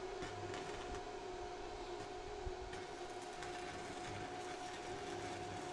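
Steady machine hum holding two even tones, with a few faint clicks.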